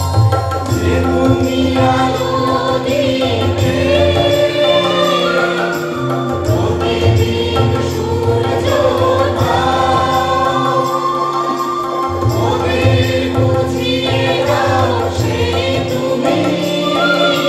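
A recorded Bengali film song: a woman's voice singing gliding, ornamented lines over a steady drone and a pulsing bass beat.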